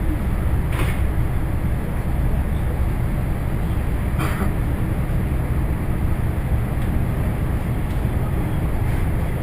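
ED4M electric train running along the track, a steady low rumble heard from inside the passenger car, with two brief knocks, one about a second in and one about four seconds in.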